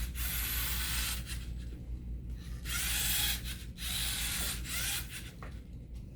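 LEGO NXT car driven from a joystick, its servo motors and gears whirring in a string of roughly one-second spurts with short pauses, over a steady low hum.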